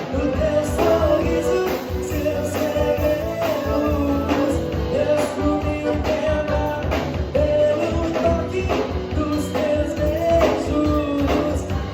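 Live band music: a pop-rock song with a steady drum beat, guitar and a sung melody.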